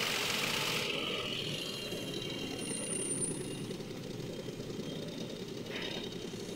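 Toyota Wigo's three-cylinder DOHC 12-valve engine idling steadily just after being started. It gets a little quieter over the first couple of seconds, then holds an even idle.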